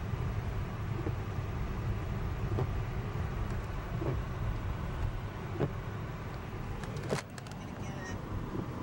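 Car cabin noise from a moving car: a steady low road-and-engine rumble. There is a sharp click about seven seconds in, and the rumble is a little quieter after it.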